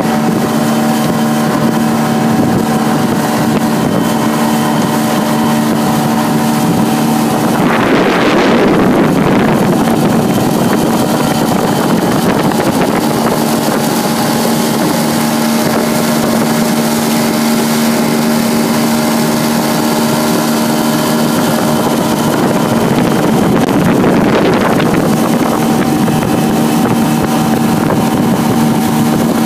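Yamaha 40 outboard motor running at a steady cruising speed, pushing a small boat through choppy water. Wind gusts across the microphone twice, briefly drowning the engine's tone.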